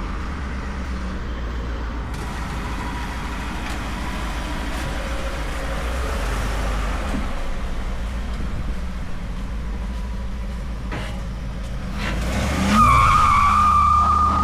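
A vehicle driving, with a steady low rumble of engine and road noise. Near the end a high whine rises and then holds steady, louder than the rumble.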